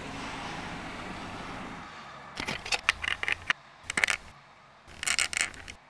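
Low street traffic noise that drops away about two seconds in, followed by three clusters of short, sharp crackling clicks.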